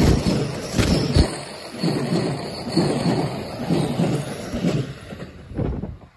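E261 series electric train passing close by: a steady rumble of wheels on rail with a rhythmic clatter about once a second, fading away near the end as the last car clears.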